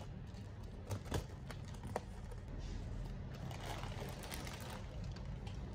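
Cardboard shipping box being handled and opened by hand: a few sharp knocks about one and two seconds in, then cardboard rustling as the flap is pulled open.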